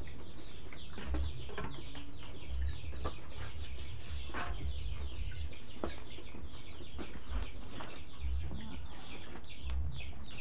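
Chickens calling steadily with many short, high, falling peeps, several a second, and a few sharp clicks among them.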